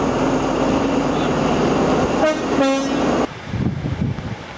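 Train rumbling close by, then sounding a two-tone horn: a short high note followed by a longer low note. About three seconds in, the loud rumble cuts off suddenly to a quieter low rumble with soft thuds.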